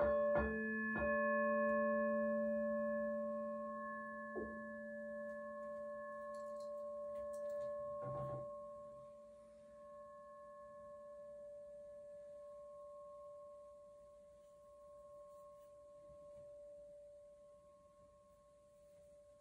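Crystal singing bowls struck with a mallet a few times at the start, then ringing on as several steady tones that sound together and slowly fade. Two small knocks come about four and eight seconds in.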